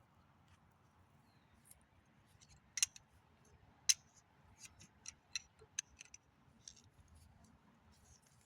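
Sharp metallic clicks of transmission parts being fitted by hand. There are two louder clicks about three and four seconds in, then a quicker run of lighter clicks.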